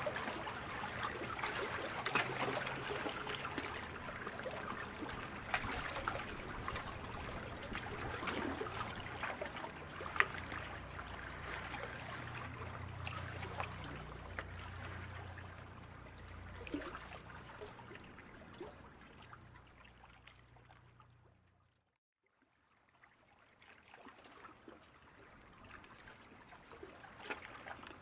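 Steady rushing, water-like noise of the racecourse with scattered faint clicks and a low hum underneath. It fades almost to silence about three-quarters of the way through, then returns more quietly.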